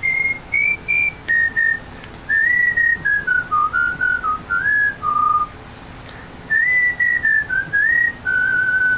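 A man whistling a tune, one clear line of melody with held notes and slides between them. There is a short pause a little past halfway before the tune goes on.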